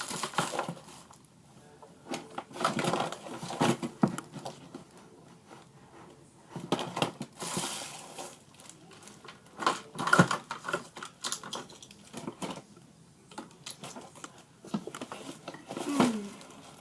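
Rummaging through small household objects: irregular clicks, light knocks and rustling as things are moved and picked up.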